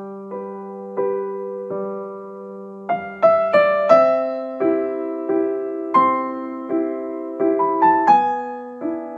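Background music: slow, gentle solo piano, single notes and soft chords struck one or two a second, each ringing and fading.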